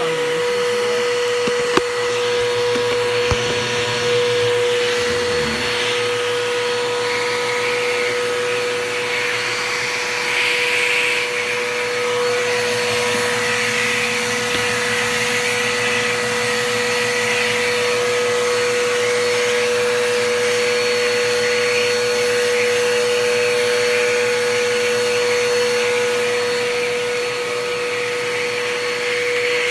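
Bissell PowerForce Bagless (6583) upright vacuum cleaner running steadily: a constant motor whine over a rush of air, with two sharp clicks in the first few seconds.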